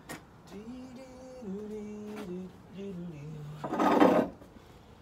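A man humming a short tune of a few held notes that step downward, followed about four seconds in by a loud brief scrape as he grabs and shifts a chair.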